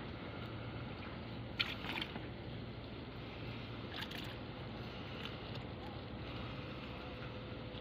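Fishing net being hauled by hand over the side of a small boat, the wet net rustling and dripping. Two short, louder splashy bursts come about one and a half and four seconds in, over a steady low hum.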